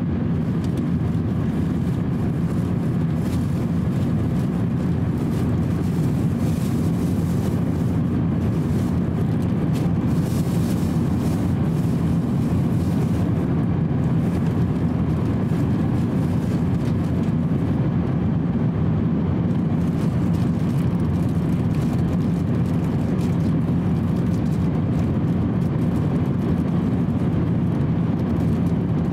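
Steady cabin noise of an Airbus A350-900 at cruise altitude: a constant low rumble of airflow and engines heard from inside the passenger cabin.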